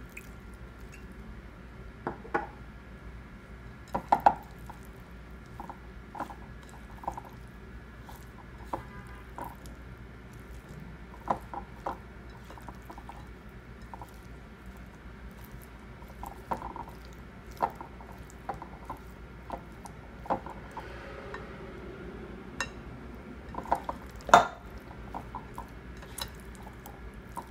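Silicone spatula mixing raw chicken pieces in a glass bowl: irregular clinks and taps against the glass, the loudest about four seconds and twenty-four seconds in, over a low steady hum.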